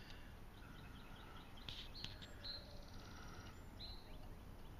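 Faint bird chirps and short calls over a low outdoor background hum.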